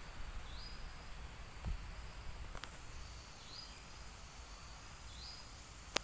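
Outdoor woodland ambience: a steady hiss over a low rumble, with a bird giving a short rising whistle three times. A soft thump comes a little under two seconds in, and a sharp click, the loudest sound, comes at the very end.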